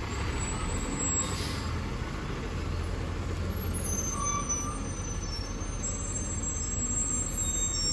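Garbage truck's diesel engine running with a steady low rumble as the truck drives off, with a few faint high squeals after about four seconds.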